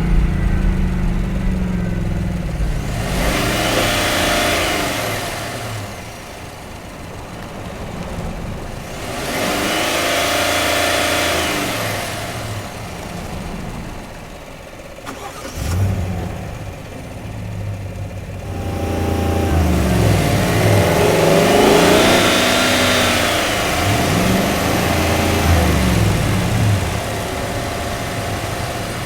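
Chevy Suburban SUV engine running, rising and falling three times as it revs or drives past, with engine pitch bending and a rush of noise at each swell. A short sharp knock comes about halfway through, followed by a steady low idle.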